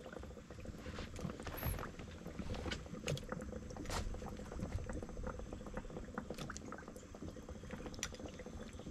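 Water sloshing and splashing beside a small boat as a little green sunfish is reeled up and lifted out, with scattered light clicks and taps from the rod, line and fish being handled.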